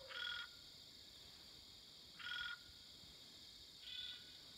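Frog calling at night: three short, buzzy pulsed calls about two seconds apart, over a faint, steady high-pitched hum of insects.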